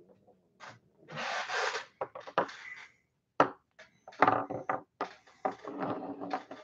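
Plastic hobby paint pots being taken out of a box and set down on a wooden workbench: rustling and rubbing with scattered clicks and knocks, the sharpest click about halfway through.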